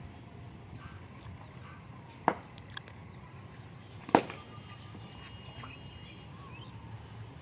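A cricket bat striking a leather cricket ball: one sharp crack about four seconds in, the loudest sound, with a smaller sharp knock about two seconds earlier.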